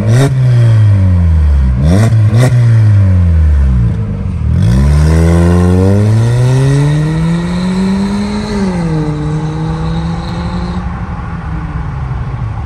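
Hyundai i40's naturally aspirated 2.0-litre four-cylinder, run through a modified exhaust with both catalytic converters replaced by flame arresters, revving and pulling away hard. The engine pitch climbs and drops several times with the gear changes, with a few sharp cracks in the first seconds, then the sound settles and fades as the car drives off.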